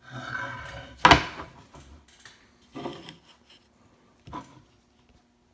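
Pieces of planed oak being handled and set down: a brief scrape, then a sharp wooden knock about a second in, and two lighter knocks later.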